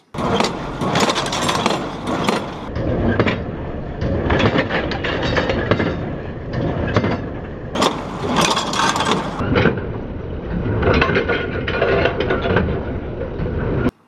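New Idea 7120 inline small square baler running in the field and packing hay: a loud, continuous mechanical clatter with repeated knocks from the plunger strokes.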